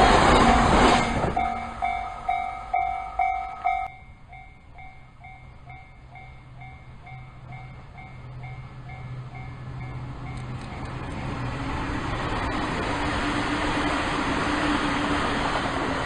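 An electric commuter train passing close and fading away in the first second, while a railway level-crossing alarm rings in steady dings about twice a second; the dings drop suddenly in level about four seconds in and die out around eight seconds. Then another train's rumble builds, loudest near the end.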